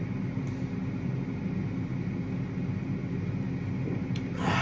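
Steady low hum of a kitchen appliance fan running. Near the end, a click and a short loud rush of breath as the drinker comes off a chugged can of cider.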